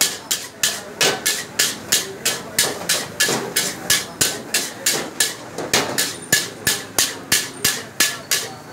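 Metal tongs clanking against a large iron wok as noodles are stir-fried over a gas burner, a steady rhythm of about three sharp clanks a second.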